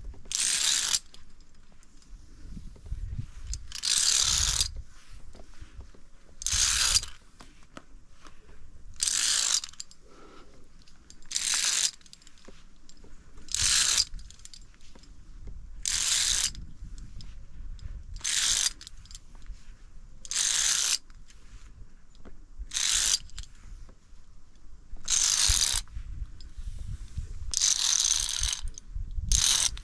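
Via ferrata lanyard carabiners sliding along the steel safety cable: a metallic scraping in short strokes, repeating about every two seconds.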